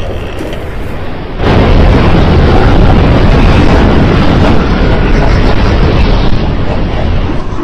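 Loud, steady rumble of a stampeding herd, a sound effect that starts suddenly about a second and a half in.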